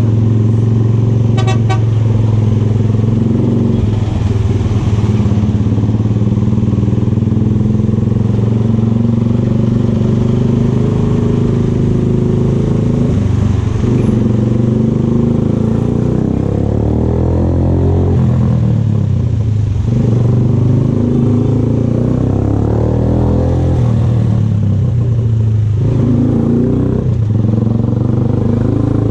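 VLR200 motorcycle engine running through an aftermarket Devil exhaust can while riding, mostly steady, with its pitch dropping and rising again a few times in the second half.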